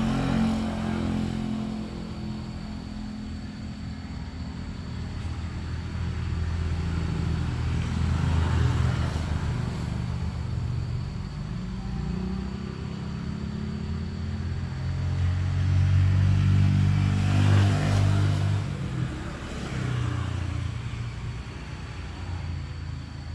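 Motor vehicle engines running and going by, swelling louder around a third of the way in and again about three quarters through.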